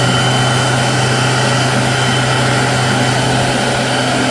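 Electric hand dryer running: a steady rush of air over a low motor hum.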